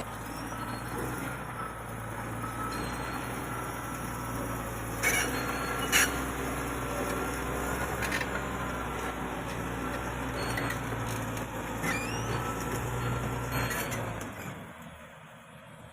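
Heavy diesel engine of a bulldozer or its self-loader truck running steadily, with two sharp clacks about five and six seconds in; the engine sound fades away near the end.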